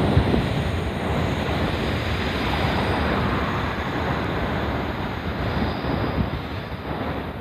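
Train passing over the level crossing, a steady rushing rumble that is loudest at first and eases off near the end as it moves away.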